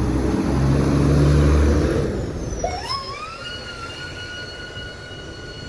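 Fire engine responding: a deep, loud engine rumble for the first two seconds, then its siren winds up in pitch about two and a half seconds in and holds a steady high tone.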